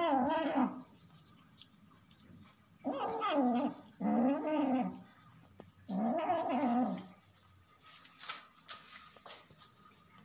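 Kitten giving low, wavering meows while eating: four drawn-out calls of about a second each, one at the start, two back to back about three seconds in, and one about six seconds in.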